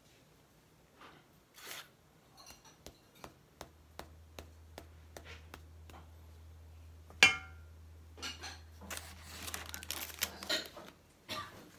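Silicone spatula tapping and scraping against a metal baking pan and mixing bowl in a run of small clicks, with one sharp metallic clink that rings briefly about seven seconds in. Parchment paper rustles near the end, over a low steady hum.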